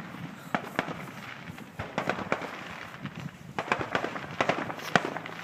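Fireworks going off: a scattered run of sharp pops and crackles, coming thickest about three and a half to five seconds in.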